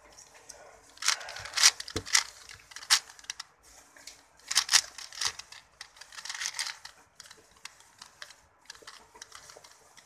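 Plastic 4x4 Rubik's cube being turned by hand: quick flurries of clicking and clacking as the layers snap round, loudest in bursts in the first few seconds and about halfway, then sparser, lighter turns.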